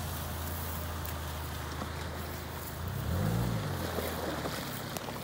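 Small off-road 4x4's engine running at low revs as it crawls through deep mud ruts, with one brief rev up and back down about three seconds in.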